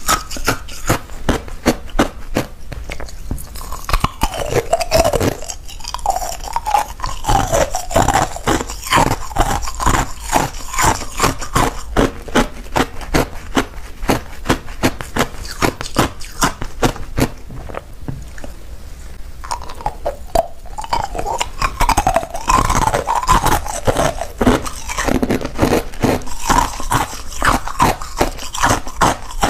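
Clear ice cubes being bitten and crunched close to the microphone, a rapid, continuous run of sharp cracks and crunches.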